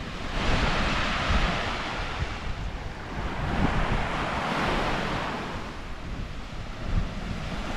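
Small waves breaking and washing up the beach, the surf hiss swelling and fading, with wind buffeting the microphone.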